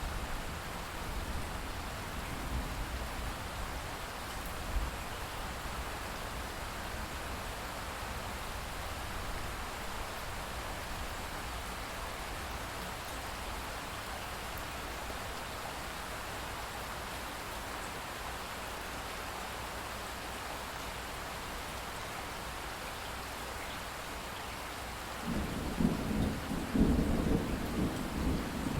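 Steady heavy rain falling, with a loud, rolling rumble of thunder that begins near the end.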